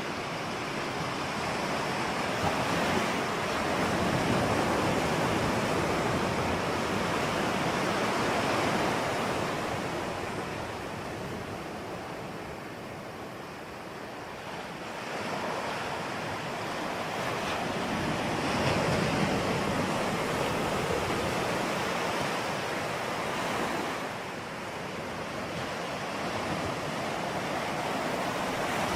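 Ocean waves breaking and washing on a shore, a continuous surf noise that swells and ebbs slowly, with two louder swells and a quieter lull between them.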